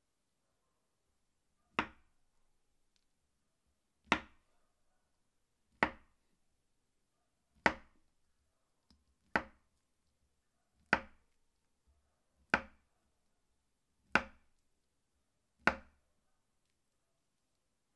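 Serrated kitchen knife slicing through a peeled banana and knocking on a wooden cutting board: nine sharp chops about every one and a half to two seconds.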